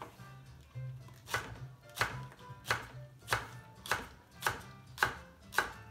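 Kitchen knife slicing a green onion (negi) into rounds on a wooden cutting board: a crisp knock of the blade through the onion onto the board, about eight strokes at an even pace of roughly one every two-thirds of a second, starting about a second in.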